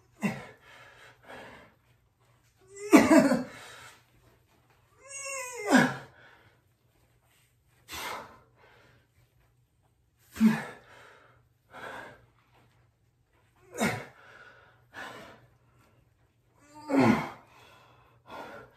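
A man breathing hard and grunting with each rep of one-arm push-ups: forced breaths every couple of seconds, with a drawn-out groan falling in pitch about six seconds in.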